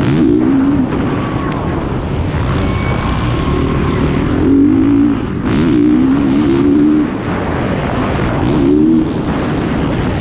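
Motocross bike engine heard on board at race pace, revving up and easing off several times as the rider works the throttle over the track, with wind on the microphone.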